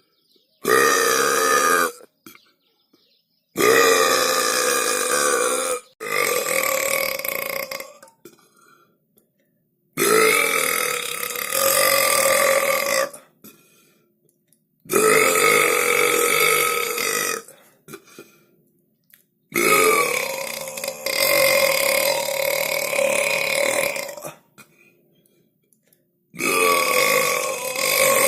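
A person belching loudly about seven times in a row, each belch drawn out for two to five seconds at a fairly steady pitch, with short silences between.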